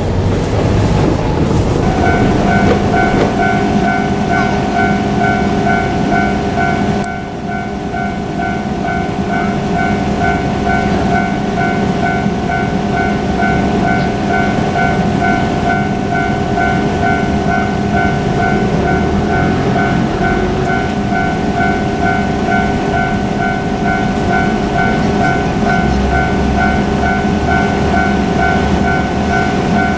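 Japanese railway level-crossing warning bell ringing with a steady, pulsing electronic tone that starts about two seconds in, over the low rumble of a KiHa 47 diesel railcar.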